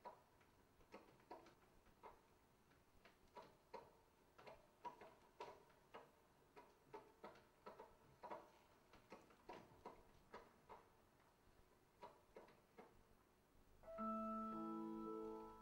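Soft, irregular ticking, about two clicks a second, each click with a brief ring. About fourteen seconds in, the ticking stops and music comes in as a held chord of sustained notes.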